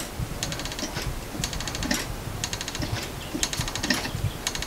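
3D-printed plastic Galileo-escapement pendulum clock ticking, about two ticks a second, with every other tick a short, rapid rattle of clicks.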